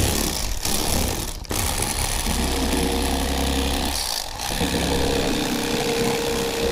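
Electric fillet knife running as its blades saw along a sucker fish fillet, a steady motor buzz with a couple of brief dips.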